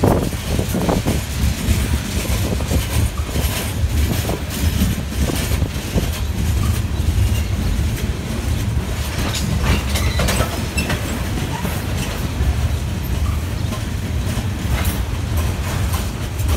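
Norfolk Southern freight train rolling past with a steady low rumble, its wheels clacking irregularly over the rail joints, with a few short wheel squeals.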